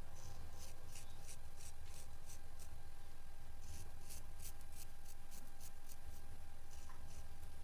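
Straight razor shaving hair off a wet scalp: a run of short, crisp scrapes, several a second, coming in three bursts with brief pauses between, over a steady low hum.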